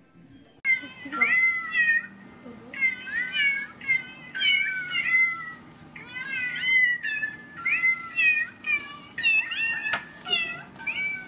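A cat meowing over and over in loud, short calls that bend in pitch, starting about a second in, with a sharp click near the end.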